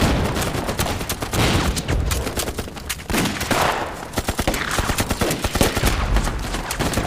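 Dense battle gunfire: rapid rifle shots overlapping with machine-gun fire, with a deep rumble about six seconds in.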